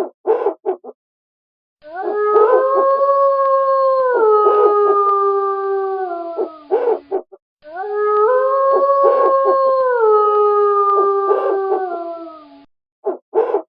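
A wolf howls twice, the same long howl repeated. Each howl rises at the start, holds for a few seconds, steps down in pitch and trails off. Short, quick calls come in clusters before, between and after the howls.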